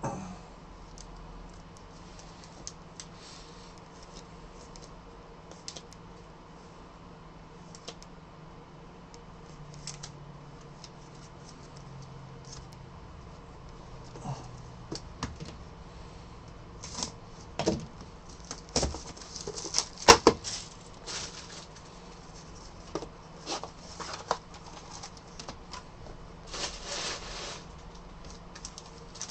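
Trading cards and cardboard card boxes handled on a table: faint taps and rustles at first, then from about halfway a busier run of sharp clicks, snaps and rustles as a box is opened and its foil packs handled.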